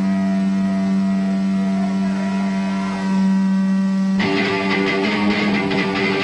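Hardcore punk band playing live: a held, droning electric guitar tone, then about four seconds in the full band comes in loud with distorted guitar and drums.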